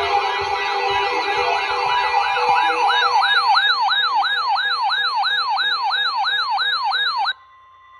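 Electronic yelp siren alert sound, a loud pitch sweeping up and down about three times a second, growing louder over a music bed for the first few seconds. It cuts off suddenly about seven seconds in, leaving a faint steady tone.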